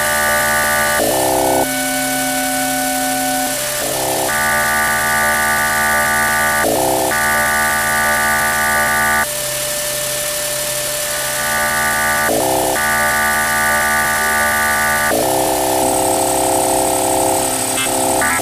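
Circuit-bent Yamaha PSR-11 keyboard sounding a string of held electronic tones over a steady low drone. Each tone cuts off abruptly and jumps to a new pitch every one to three seconds.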